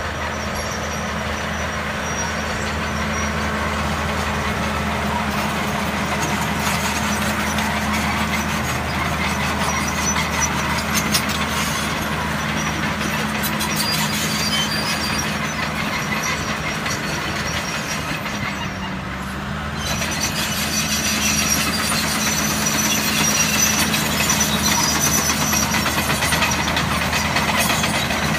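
Heavy machine's engine running steadily under load, with clatter over the top. It eases off briefly about two-thirds of the way through, then picks up again.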